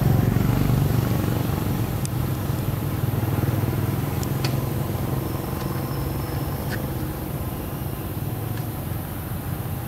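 Steady low rumble of a motor running, with a few faint clicks.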